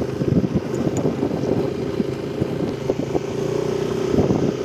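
Motorcycle engine running steadily while riding along a road, with wind rumbling on the microphone.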